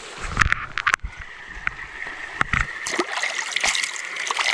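Fast-running small-stream water with splashing, and a few sharp clicks in the first second.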